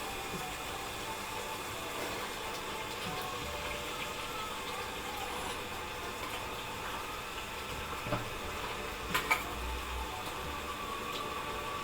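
Pot of pasta in tomato sauce simmering on a low flame, a steady bubbling hiss, with a few light clicks about 8 and 9 seconds in.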